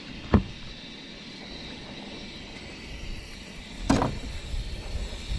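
Two sharp knocks, one just after the start and a louder one about four seconds in, over a steady hiss, with low rumbling thumps near the end.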